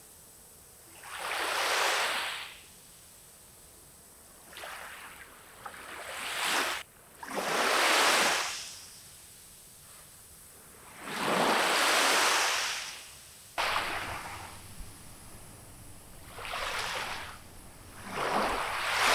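Small waves breaking and washing up a sandy beach, each one swelling and fading over a second or two, every few seconds.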